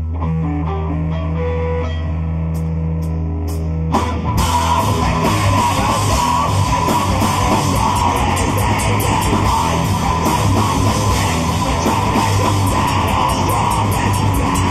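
Live mathcore band playing loud in a small room. The first part is a held low drone with single guitar notes stepping over it and four evenly spaced sharp hits. About four seconds in, the full band crashes in with distorted guitars and drums.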